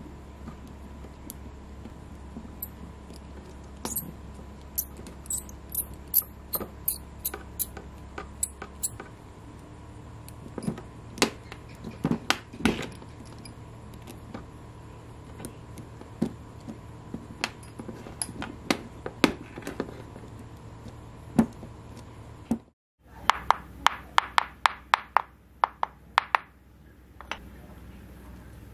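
A precision screwdriver driving small screws into a 3D-printed plastic axle frame: scattered light ticks and clicks, with a few louder knocks about halfway through. Near the end, after a brief dropout, a quick run of sharp clicks comes from pliers and a thin steel wire worked against a tile.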